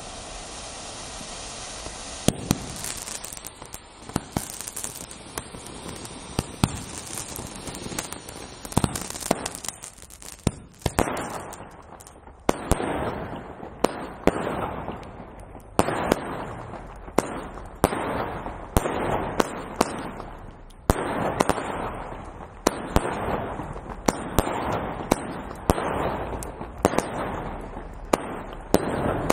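Consumer fireworks: first a ground firework hissing steadily, with sharp bangs starting about two seconds in. Then, from about a third of the way through, a firework cake fires shots roughly once a second, each a sharp pop followed by a fading hiss.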